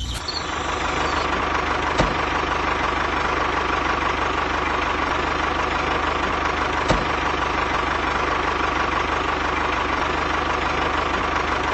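Steady engine running sound of a miniature tractor pushing a roller, even and unchanging throughout. Two sharp clicks come through, about two seconds in and again near seven seconds.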